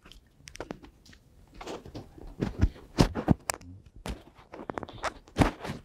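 Microphone being handled and passed between speakers: irregular thumps, knocks and rustling, the loudest knocks about three seconds in and near the end.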